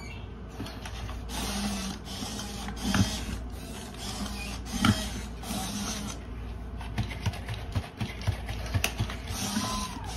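Servo motors and gears of two robot dogs, an I-Cybie and a Sony Aibo, whirring in short stretches as they move their heads and legs. Many sharp clicks and taps come through, with a short rising-and-falling electronic tone near the end.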